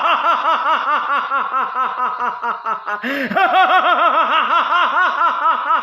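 A recorded, Ravan-style villain's laugh played by a gadget when its button is pressed: a long run of even 'ha-ha-ha' pulses, about six a second, with a new phrase starting about three seconds in.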